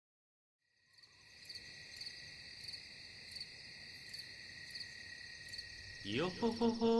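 Crickets chirping in a steady high trill that fades in, pulsing about every two-thirds of a second. About six seconds in, a long sung or chanted note slides up to its pitch and holds, louder than the crickets.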